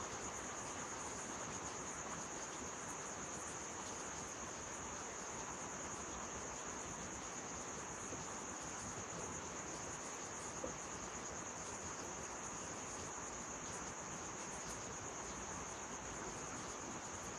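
Insects droning steadily at one high pitch over a constant hiss, with a single faint tick about ten seconds in.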